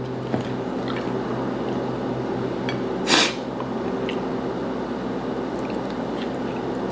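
Close-up eating at the microphone: small wet mouth sounds and clicks over a steady low hum, with one short, louder wet noise about three seconds in.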